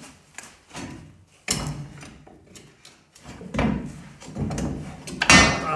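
Irregular metal clanks and scrapes as the front coil spring of a Chevy C10 is worked loose from its lower control arm and pocket. The loudest clank, near the end, rings briefly.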